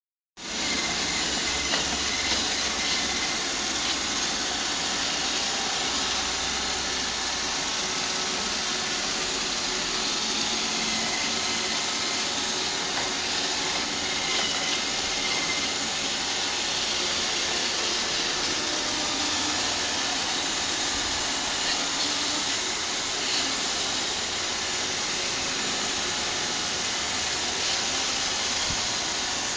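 iRobot Roomba robot vacuum running: the steady whirring hiss of its suction motor and brushes, with a faint high whine.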